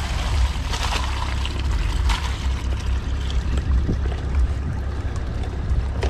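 Water pouring and trickling out of a small fishing cooler tipped over onto the ground, over a steady low rumble of wind on the microphone.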